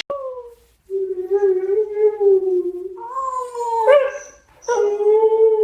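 Dog-like howling: a short howl, then long drawn-out howls held at a fairly steady pitch, with brief breaks between them.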